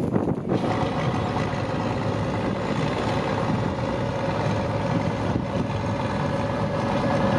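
John Deere tractor's diesel engine running steadily as it drives along a field track, a constant drone with a steady hum on top. Wind noise on the microphone for the first half second.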